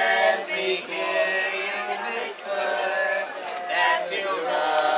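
A group of waitstaff singing together, with crowd chatter underneath.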